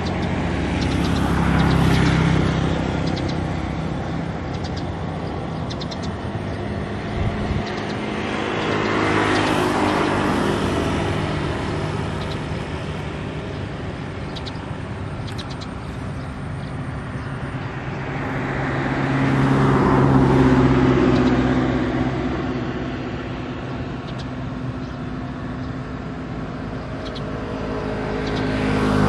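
Motor vehicles passing by on a road one after another, about four passes, each one swelling up and fading away.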